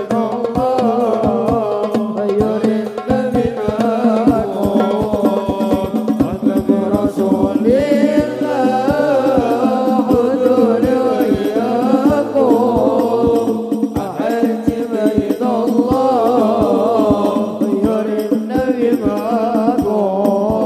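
Voices singing a sholawat, an Islamic devotional song praising the Prophet, over a fast, steady beat of hadrah terbang frame drums.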